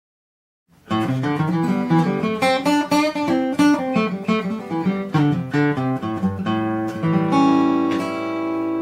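Acoustic guitar played quickly: after about a second of dead silence comes a fast run of picked notes, ending near the end in a chord left ringing.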